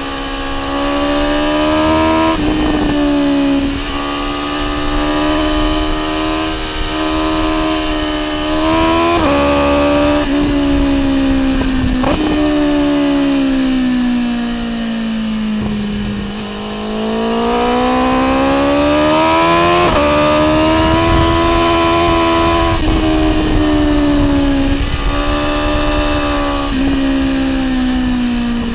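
BMW S1000R inline-four engine through an Akrapovic exhaust, pulling under throttle as the bike is ridden. Its note wavers up and down, is cut briefly by several quick gear changes, and falls under deceleration about halfway through before rising again as the throttle comes back on.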